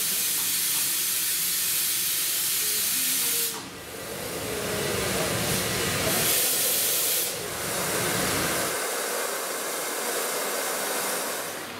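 Steam locomotives hissing off steam in a loud, steady hiss. It dips briefly about three and a half seconds in and swells to a louder gush around six to seven seconds in.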